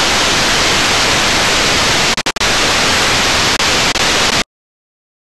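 Loud, steady hiss of static white noise, an edited-in sound effect, broken by two brief dropouts about two seconds in. It cuts off abruptly into silence near the end.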